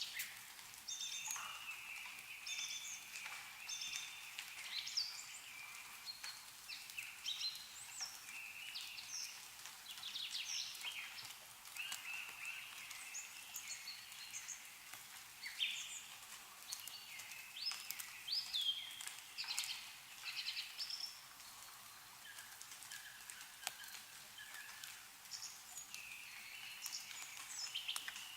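Several small birds chirping and warbling over one another, with scattered sharp drips of meltwater falling from snow-laden trees.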